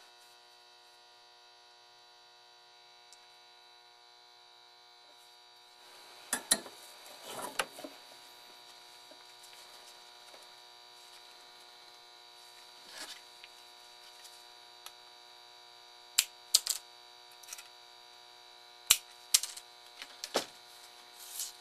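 Steady electrical hum made of several steady tones, with scattered sharp clicks and taps from a printed circuit board being handled and turned over in gloved hands, coming in a few at a time after about six seconds and thickest in the last third.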